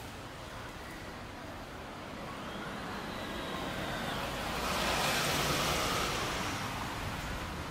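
A vehicle passing by on a city street: its hiss swells, peaks about five seconds in and fades, over a steady background of traffic noise.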